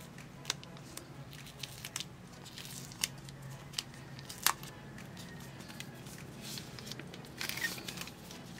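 Thin clear plastic wrap being peeled off a smartphone: scattered crinkles and crackles, a sharper crack about halfway through, and a denser rustle near the end as the film comes free.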